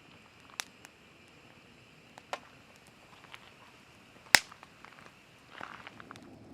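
Scattered light clicks and knocks, with one much sharper, louder click a little over four seconds in, over a faint steady hiss.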